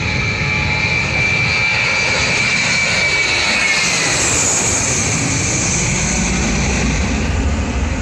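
Jet aircraft engines running: a steady high whine over a rushing noise. The whine dips slightly in pitch about three and a half seconds in, a hiss swells just after, and a low rumble builds toward the end.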